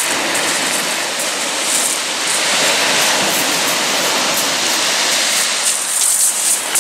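Surf breaking and washing up a steep shingle beach: a loud, steady rush of water. Near the end, quick crackling clicks of shingle come in.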